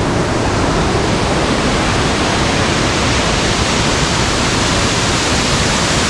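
Powerful waterfall heard from right beside it: a loud, steady rush of falling water.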